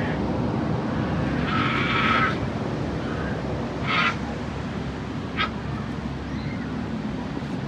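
Steady rush of ocean surf and wind, with three short high cries about two, four and five and a half seconds in.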